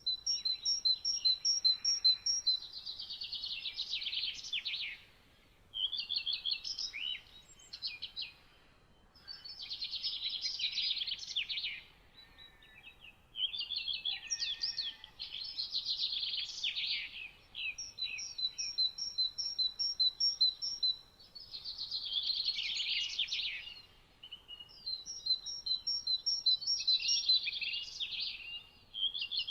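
A songbird singing its song over and over, a phrase about every 3 to 4 seconds. Some phrases open with a run of evenly spaced high notes and then break into a fast, jumbled trill.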